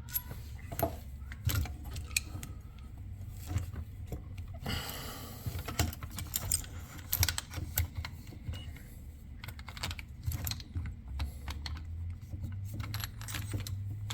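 Small hard parts clicking and clinking as a hinge pin and RC car A-arm parts are handled and fitted, with a brief rustle about five seconds in.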